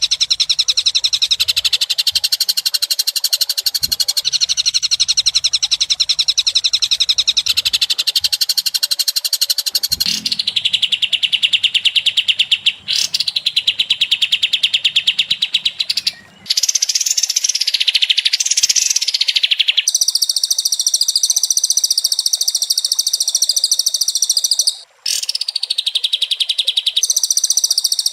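A rapid, high-pitched chirping trill of fast, even pulses that runs on without pause. Its pitch and tone change abruptly several times, with brief drop-outs, as separate recordings are spliced together.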